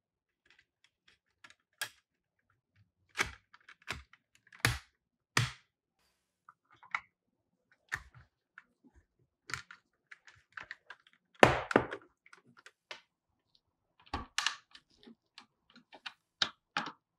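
Parts of a die-cast toy pickup truck being handled and fitted together by hand: scattered sharp clicks and light knocks of metal and plastic pieces, with a louder cluster of knocks about two-thirds of the way in.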